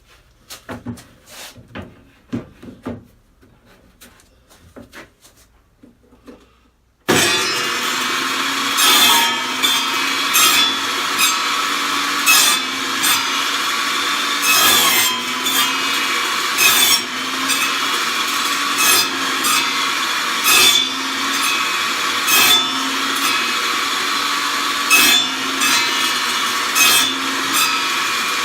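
A few scattered knocks of wood being handled, then, about seven seconds in, a table saw running loudly with its blade cutting into a board again and again, a louder burst about every two seconds as each overhanging corner is sliced off on a circle-cutting jig.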